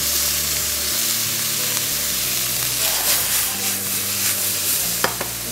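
Potato gnocchi, oyster mushrooms, asparagus and cherry tomatoes sizzling steadily in hot olive oil in a wok, with faint clatter as the wok is shaken partway through.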